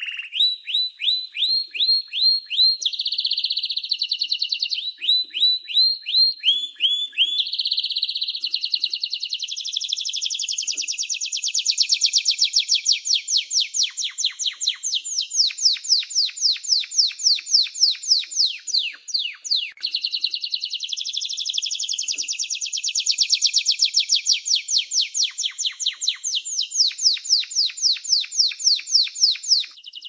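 Canary singing a long, continuous song of rapid trills: each tour is a string of quickly repeated falling notes, and the song switches to a new tour every few seconds, from slower separate notes at the start to fast rolling trills from about eight seconds on.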